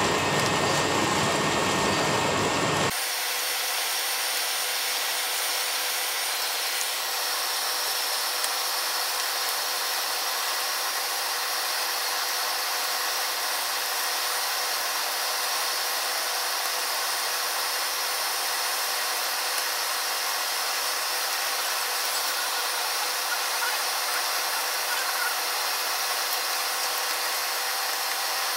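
Flames of a mass of burning matchsticks, a steady hiss with an occasional faint pop. About three seconds in, the low end drops away and the hiss turns thinner and slightly quieter.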